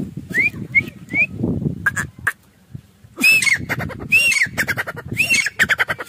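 Grey francolin calling: a few short rising notes, then from about three seconds in a loud repeated phrase, a high arched note followed by a quick rattling run of notes, about once a second. Two sharp clicks fall near the middle.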